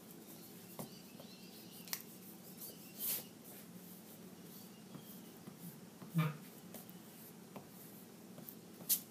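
Faint erasing and paper handling at a drawing desk: a few brief rubs and light taps, scattered through otherwise quiet room tone.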